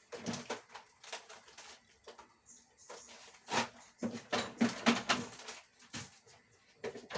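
Kitchen containers and utensils being handled: a scattered series of light knocks and clinks, busiest in the middle of the stretch.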